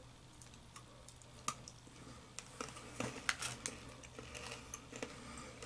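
Faint, scattered crunches of a piece of Brown & Haley Sea Salt Caramel Roca, a hard toffee candy, being chewed close to the microphone.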